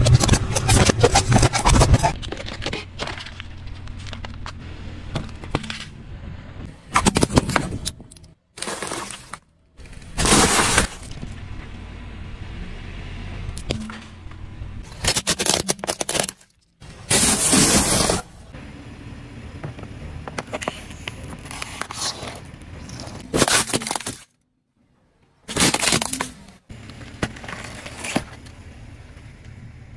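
Car tyre rolling over and crushing objects: a run of short, loud crunches, cracks and pops, each lasting a second or so. Quieter stretches lie between them, and the sound cuts off abruptly several times.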